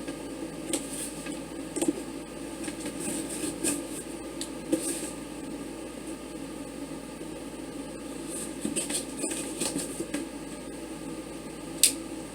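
Packaging being handled and opened, with intermittent rustling and scraping and one sharp click near the end, over a steady background hum.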